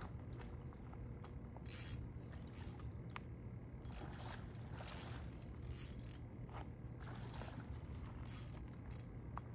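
Fishing reel cranked in short, irregular runs while fighting a hooked catfish: a scraping whir that starts and stops over a steady low hum.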